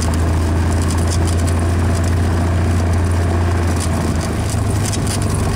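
Cessna 172's piston engine and propeller running at low power in a steady low drone, heard from inside the cabin as the plane rolls along a dirt strip, with scattered light rattles.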